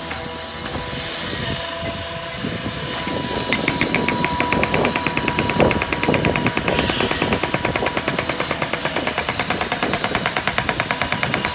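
A construction power hammer pounding with many rapid, even strikes a second. It starts about three and a half seconds in, over a steady hum of site machinery.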